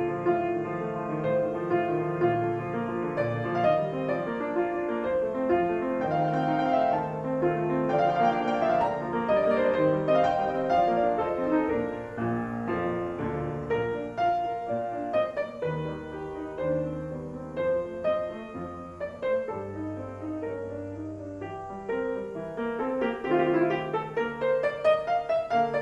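Piano concerto on two pianos, the soloist on a grand piano with the orchestral part played on a second piano: continuous classical playing. It eases to a softer stretch in the middle, then builds to louder, faster passages near the end.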